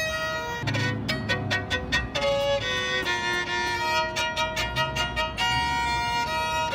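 Background music led by violin, with short notes changing at a lively, regular pace.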